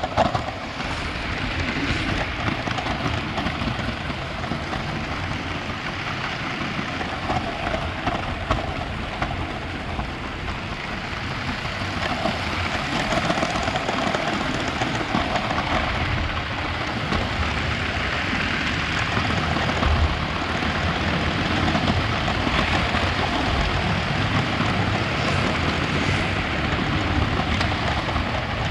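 Lego 9V train running along its track: a steady rolling noise of the motor and wheels on the metal rails.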